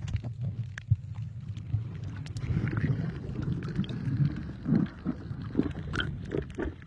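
Muffled underwater noise as heard by a submerged camera: a low rumble of moving water with scattered clicks and knocks, and some uneven muffled sounds in the middle stretch.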